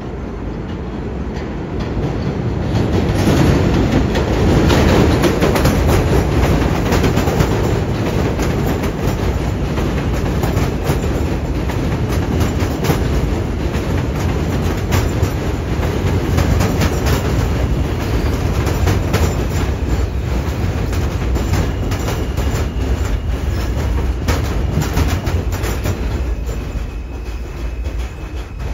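R160 subway train pulling into the station past the platform, its wheels clattering over rail joints as the cars go by close up. The noise builds over the first few seconds, holds, then eases near the end, where a faint high whine comes in.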